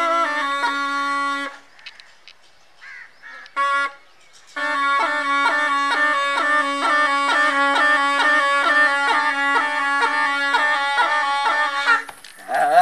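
Snake charmer's been (pungi), a gourd reed pipe, playing a melody over a steady reed drone. It breaks off after about a second and a half, gives one short note near four seconds, then comes back with quick repeated notes over the drone and stops about a second before the end.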